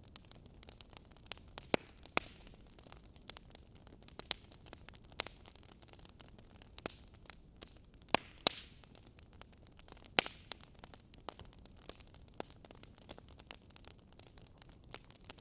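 Wood fire crackling in a fireplace: irregular sharp pops and snaps over a steady soft hiss, with the loudest pops about 2, 8 and 10 seconds in.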